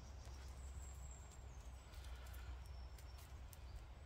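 Faint crackle of a small kindling fire, with scattered sharp clicks and light knocks of split sticks being laid on it.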